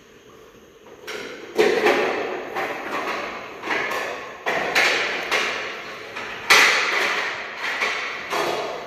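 A string of about a dozen sharp knocks and clatters from kitchen work at a counter, coming irregularly roughly once or twice a second, each one ringing on briefly.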